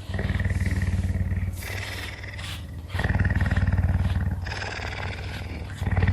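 Puma purring continuously while being brushed, a fast low rumble in alternating louder and softer stretches of about a second and a half as it breathes out and in.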